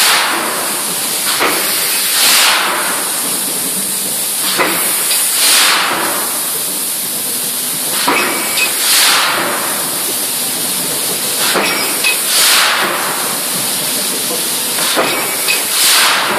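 4000-tonne Voronezh KB8546 hot forging press cycling, about every three and a half seconds. Each cycle is a sharp metallic knock followed about a second later by a short burst of hiss, over a steady loud hiss.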